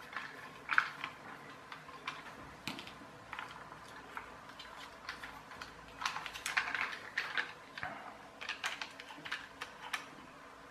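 Irregular light clicks and taps of hard plastic parts and a small screwdriver as a toy RC car is taken apart by hand, coming in clusters, busiest about six seconds in and again near the end.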